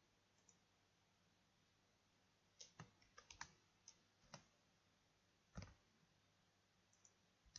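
Faint clicks of a computer keyboard and mouse: a quick cluster of keystrokes a little before halfway, a single louder click about two seconds later, and a couple of light clicks near the end.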